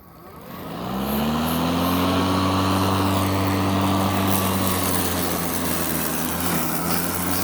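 Greenworks electric lawn mower's motor starting up, its whir rising in pitch over about the first second and a half, then running steadily with an even hum.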